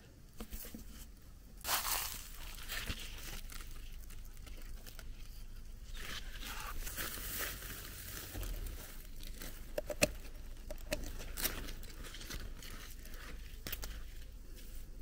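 Rustling, crinkling handling noise with scattered sharp clicks, a louder burst about two seconds in and a sharp click about ten seconds in.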